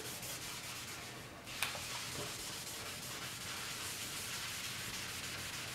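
A blending towel rubbing charcoal into drawing paper, a steady soft scratchy hiss with a brief break just over a second in.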